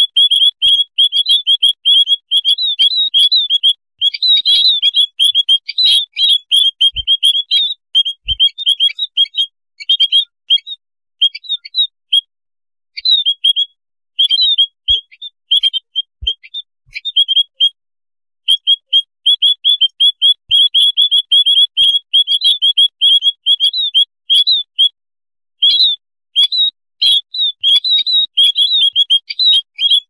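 A noisy flock of white-headed munias (pipit haji) chirping rapidly, with many short high calls overlapping and a few brief breaks about halfway through. This is a bird-trapping lure call used to draw munias in.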